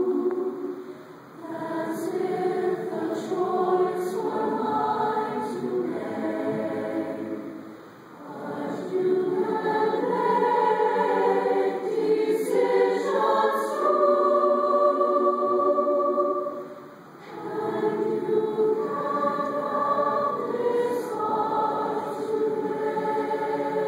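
Large mixed choir singing sustained chords in long phrases, with three short breaks between phrases.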